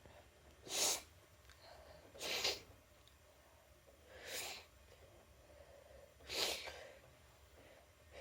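A person taking four quick, noisy breaths about two seconds apart, the hitching breaths of a sneeze coming on.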